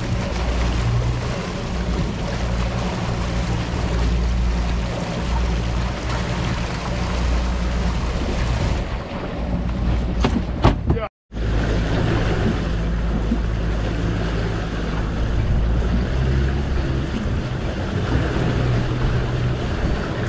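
Suzuki 300 V6 four-stroke outboard running steadily under way, with water rushing in the wake and wind on the microphone. A few sharp clicks about ten seconds in, then the sound cuts out completely for a moment before the engine and water return.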